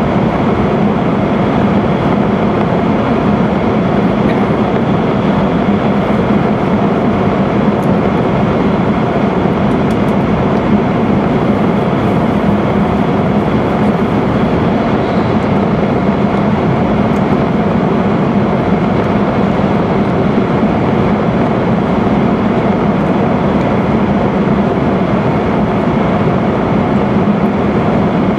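E5 series Shinkansen running at high speed through a tunnel, heard from inside the passenger cabin: a loud, steady running noise with no rhythm or breaks.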